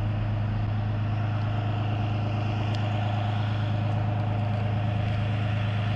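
A vehicle engine idling steadily: a constant low drone that does not change in level.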